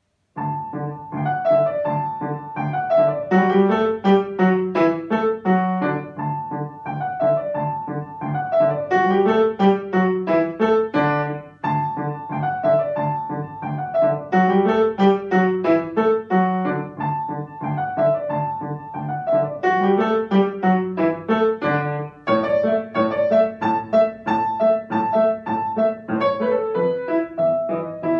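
Solo grand piano: a piece starts a fraction of a second in, a short phrase repeated several times over a steady repeated low bass note.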